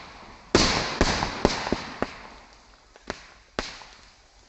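Sodium metal reacting violently on a pond's water surface, giving a string of sharp bangs and cracks like firecrackers as the hydrogen it gives off ignites. The loudest bang comes about half a second in, followed by about half a dozen smaller pops that spread out and weaken toward the end.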